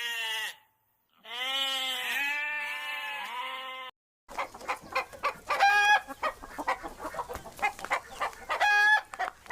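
Sheep bleating, two long wavering bleats, followed from about four seconds in by chickens clucking in quick short notes with two brief higher calls.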